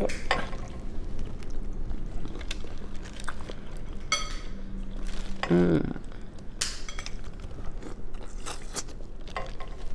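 Eating sounds from a seafood boil in a plastic bag: fingers working through the sauce-coated shellfish in the rustling bag, with wet clicks and crackles of peeling and chewing. A brief vocal sound comes about five and a half seconds in.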